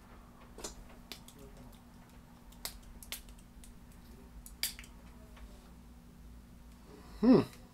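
A few sharp clicks and taps from handling a small fragrance sample bottle, one with a brief hiss about four and a half seconds in, over a faint steady hum. Near the end, a short hummed "mm" from a man.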